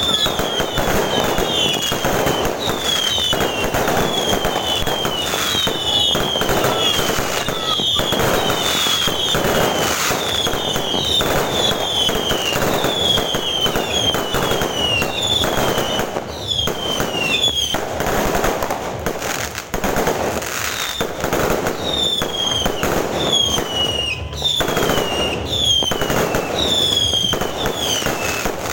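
Fireworks going off without pause: a dense run of bangs and crackling, with many short high whistles falling in pitch, one or two a second.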